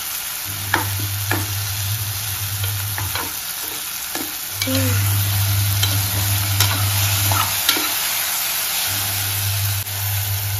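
Chopped onions and tomatoes sizzling in oil in a metal pressure-cooker pot, with a steel spoon stirring and scraping against the pot in scattered sharp clicks. A low hum comes and goes, and the sound gets louder about halfway through.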